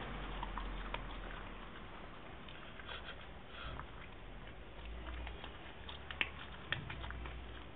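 A Siberian husky crunching dry kibble: irregular crisp cracks and clicks of chewing, with two sharper cracks a little after the middle.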